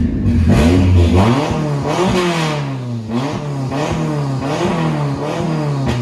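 Race car engine heard from inside its caged cabin, revved up and down again and again, its pitch rising and falling about once a second. It is loud enough to read 103 dB on a watch's noise meter.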